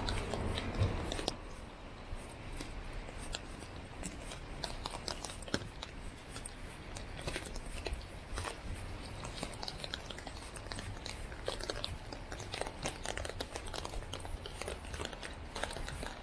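Rain pattering in many irregular sharp taps close to the microphone, over a low steady city rumble. A louder hiss fades out a little over a second in.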